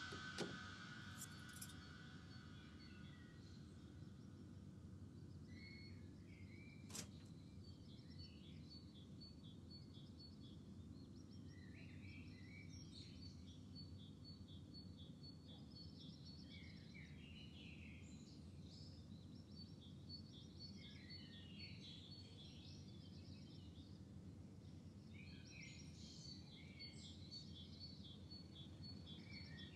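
Faint birds chirping, with repeated short calls over a steady low ambient hum. Two sharp clicks sound, one right at the start and one about seven seconds in.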